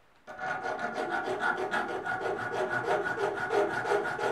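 Hand file scraping back and forth over the edge of a small metal bracket clamped in a vise, in quick, even strokes, filing down a lip on the bracket.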